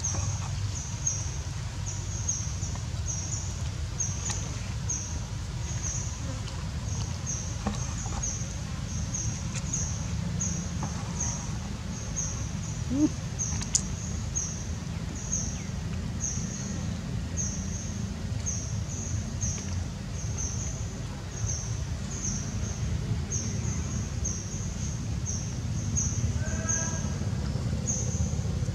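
Outdoor forest ambience: a steady low rumble under a high, short chirp repeating about one and a half times a second, with a short run of squeaky animal calls near the end.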